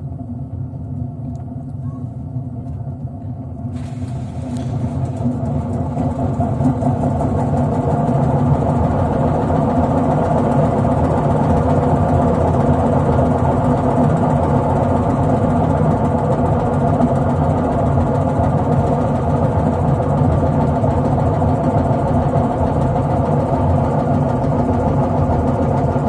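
Drum of an LG F8068SD direct-drive washing machine spinning on a worn drum bearing, giving a steady hum and rustle. The sound grows louder a few seconds in as the drum speeds up past 400 rpm, then holds steady; a hum like this means the bearing is worn and due for replacement.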